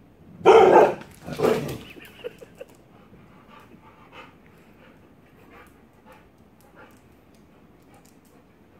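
Rottweiler puppy barking twice, about a second apart, startled by a shadow on a laptop screen, followed by faint scattered clicks.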